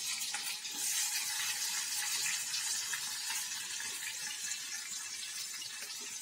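Garlic cloves frying in hot oil in a clay pot, a steady sizzle.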